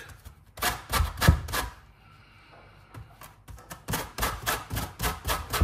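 Kitchen knife chopping on a cutting board, cutting orange peel into thin strips: a few sharp strikes in the first two seconds, a pause, then a quicker run of strikes near the end.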